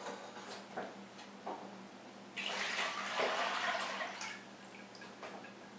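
Beef stock poured from a glass measuring jug into a plastic container: a splashing pour lasting about two seconds near the middle, with a few light clinks before it.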